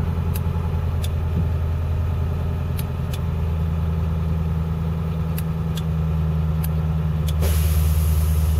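School bus diesel engine held at a fast idle of about 1,000 rpm, running steadily. About seven seconds in, it gets louder and a hiss joins it.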